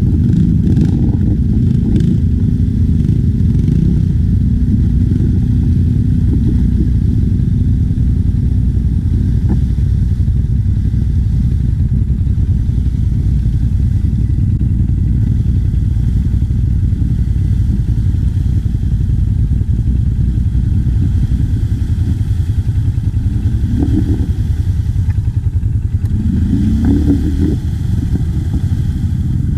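ATV engine running steadily, a dense low rumble, heard muffled through the camera's microphone.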